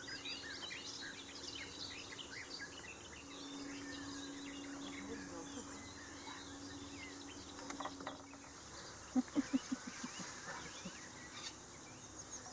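Several small songbirds chirping and twittering in a wetland morning chorus, over a steady low hum that stops about two thirds of the way through. About nine seconds in, a quick run of about five low, loud pulses stands out above the birdsong.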